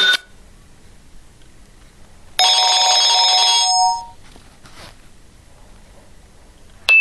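Nokia 6124 classic mobile phone playing a short ringtone through its loudspeaker: a single burst of several steady tones about a second and a half long, starting a couple of seconds in.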